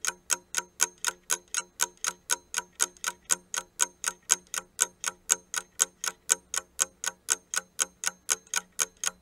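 Ticking-clock sound effect marking a quiz countdown timer: steady, evenly spaced ticks, about four a second.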